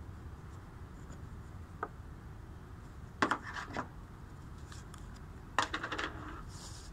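Two short bursts of light clicking and clattering, one about three seconds in and another near the end, from a small plastic jar of metal polish being handled and set down on the car's bonnet.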